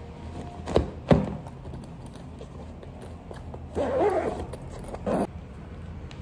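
Two sharp knocks as food containers are set into a fabric insulated lunch bag, then the bag's zipper drawn in a longer stroke and a short final one.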